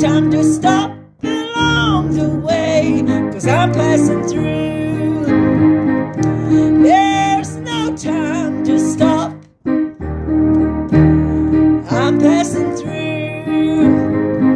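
A woman singing with piano accompaniment: held keyboard chords under her sung melody, with two brief breaks in the sound, about a second in and again about two-thirds of the way through.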